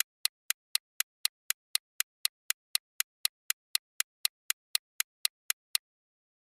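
Countdown-timer ticking sound effect: sharp, even clock-like ticks about four a second, stopping abruptly near the end as the timer runs out.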